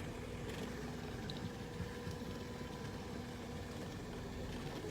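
Fishing boat's motor running steadily at low speed, a low even hum with no change through the stretch.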